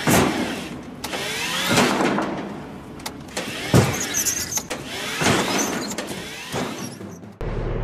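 Small electric utility cart lurching back and forth in a tight concrete corridor, bumping the walls about five times, each thud followed by a rising motor whine. Just before the end it cuts abruptly to a steady low truck-engine drone.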